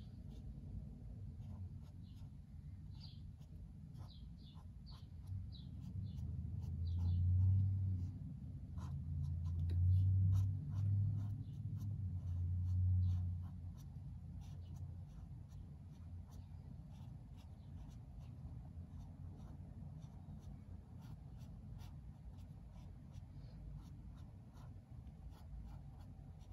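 Felt-tip marker making quick, short strokes on sketchbook paper: a steady run of light taps and scratches. A low rumble swells in for several seconds in the middle and is the loudest sound.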